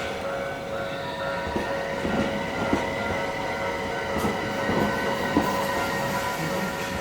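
A Tokyu Setagaya Line tram running over a level crossing, its wheels knocking over the rail joints several times between about two and six seconds in, over a steady whine.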